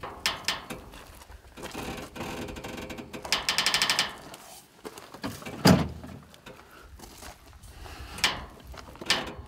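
Elk bugle calls practiced on a mouth diaphragm call: a pitched note, then a fast run of grunting chuckle pulses, a single loud low sound about halfway, and two short rising squeals near the end.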